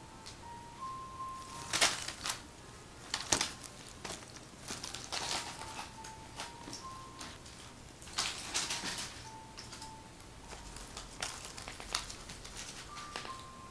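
Two kittens play-fighting: irregular bursts of scrabbling, scuffling and sharp clicks as they tussle, loudest about two and three seconds in. Quiet background music of single high notes plays underneath.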